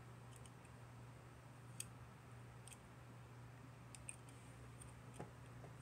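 Near silence broken by about half a dozen faint, scattered clicks of small plastic Gundam model-kit parts being handled and fitted.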